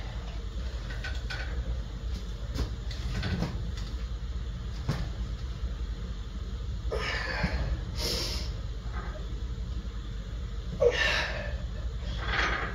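Handling of a plate-loaded cable pulley and bar: scattered clicks and knocks, then a few longer hissing rushes near the middle and end as the stacked weight plates are lifted for cable curls.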